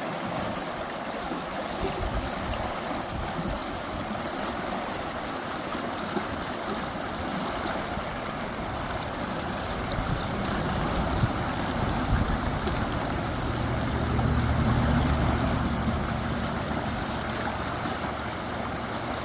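Stream water running steadily. In the second half a low, droning hum rises and falls away again.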